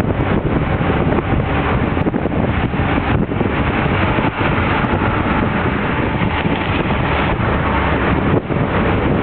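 A jeepney moving at speed, its engine and tyre noise mixed with wind buffeting the microphone at the open rear of the vehicle.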